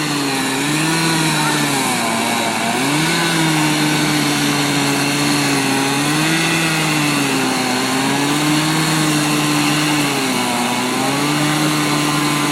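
Two-stroke chainsaw running hard, its engine pitch sagging and climbing back several times, as when the saw is worked through a log.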